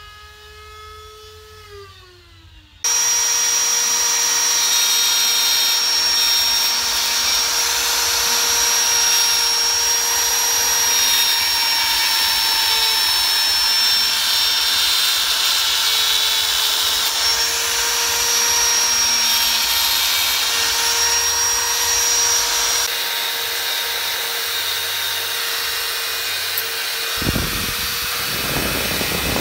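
Electric rotary carving tool (die grinder) switching on about three seconds in and running steadily at high speed with a steady whine, its bit grinding into root wood. A few low thumps come near the end.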